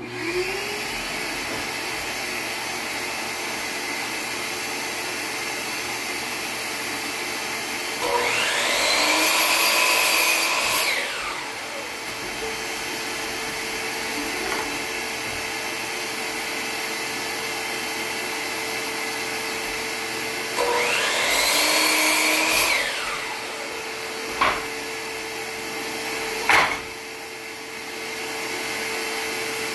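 A shop vacuum runs steadily. Twice, about eight seconds in and again about twenty seconds in, a DeWalt miter saw spins up with a rising whine, cuts through a wooden board, and winds down with a falling whine. Two sharp clicks follow near the end.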